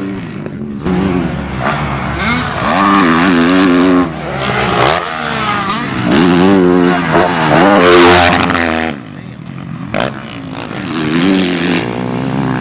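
Yamaha YZ450F four-stroke motocross bike revving up and down repeatedly as it is ridden hard over the track, loudest about eight seconds in as it passes close by.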